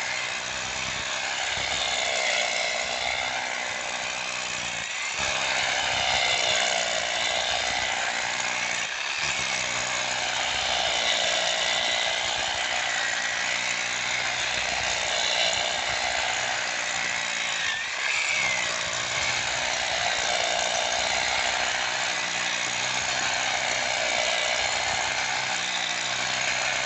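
Powered hammer drill boring into stone, running steadily with a loud rattling drone. It eases off briefly about 5, 9 and 18 seconds in.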